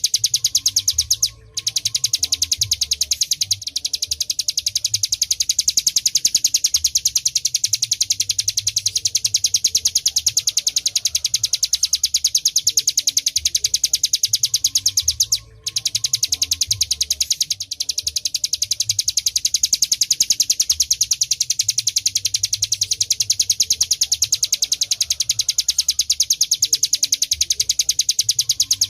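Ciblek gunung (a prinia) singing a fast, continuous high-pitched trill of rapidly repeated notes. The song breaks off for a moment about a second and a half in and again about halfway through, then carries on as before.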